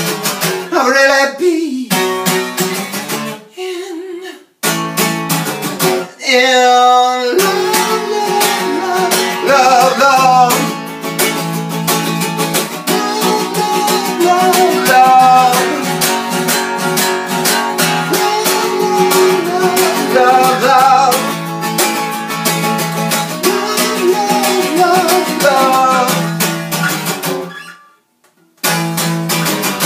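Acoustic guitar strummed and picked in a folk song, with brief wordless singing near the start and again around six seconds in. The guitar carries on alone, then stops about two seconds before the end, with a short strum after.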